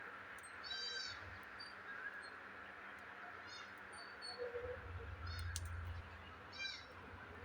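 Faint, quiet background with a few short, high chirping bird calls, about four of them spread out.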